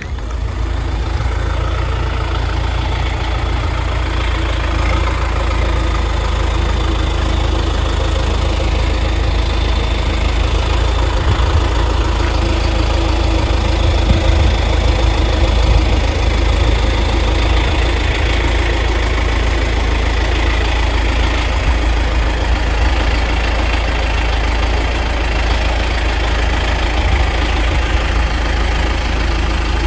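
A large engine idling steadily at an even, low pitch.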